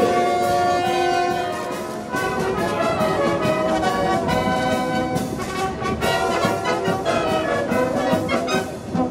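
A wind band playing: brass and clarinets together over a steady beat.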